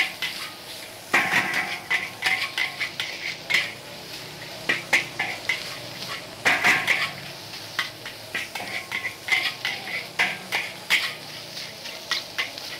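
Long-handled metal spatula scraping and clanking against a large steel wok while fried rice is stir-fried. It comes in quick, irregular clusters of strokes.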